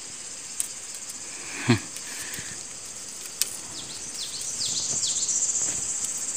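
Steady high-pitched insect buzzing that grows louder in the second half. There is one brief loud cry with a falling pitch about a second and a half in, and a few quick falling chirps a little later.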